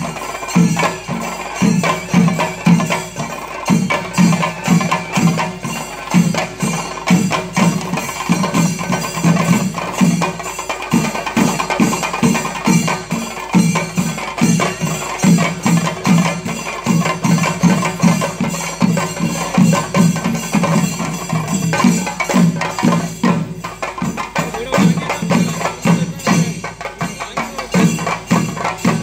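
Chenda drums beaten with sticks in a fast, steady rhythm, with metal hand cymbals clashing along, as the traditional percussion for a thira (theyyam) dance. The beat eases briefly a little past the middle, then picks up again.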